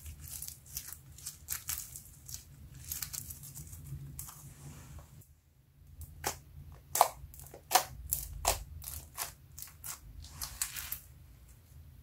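Hands squishing and pressing slime, making many sharp, irregular wet pops and clicks, with slime full of small foam beads crackling as it is squeezed. There is a brief lull about five seconds in, and the loudest pops come after it.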